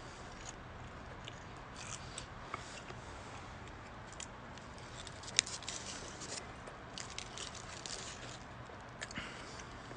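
A person biting into and chewing a large breakfast sandwich with lettuce, soft wet smacks and crisp crunches at irregular moments, with one sharp click about five seconds in and a cluster of crunches near the end.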